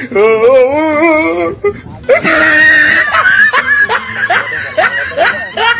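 Loud, exaggerated laughter: a drawn-out wavering laugh, a shrill screech about two seconds in, then a run of short rising laughs about three a second.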